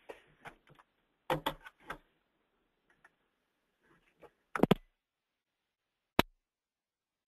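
Scattered sharp clicks from a computer mouse and desk handling. A few light clicks come in the first two seconds, a loud quick cluster about four and a half seconds in, and one last sharp click about six seconds in.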